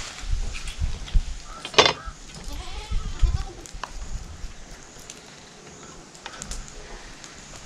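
A goat bleats loudly about two seconds in, followed by fainter bleats. A few light knocks come from a metal pan being handled.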